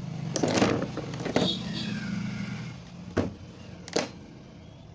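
A digital multimeter and its test leads being picked up and handled over an open CRT TV chassis: a run of sharp clatters and knocks in the first second and a half, then two more single knocks about three and four seconds in. A steady low hum runs underneath, with a brief faint high whine just after a second and a half.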